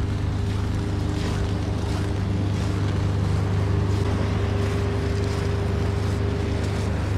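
A motor running steadily: a constant low hum with a fainter, higher steady tone above it.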